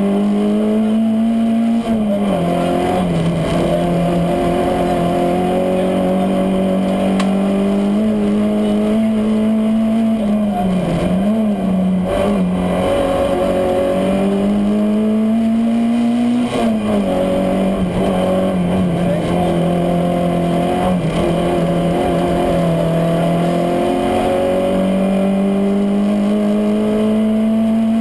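Citroën AX GTI Group A rally car's 1.4-litre four-cylinder engine at high revs, heard from inside the cabin. Its pitch climbs slowly under full throttle and drops sharply about four times, at shifts or lifts for corners.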